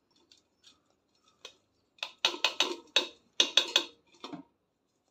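Stainless-steel mixer-grinder jar knocked repeatedly against a steel wire-mesh strainer to shake out ground peanut powder. A few faint clicks come first, then about two seconds in a quick run of about ten sharp metallic taps.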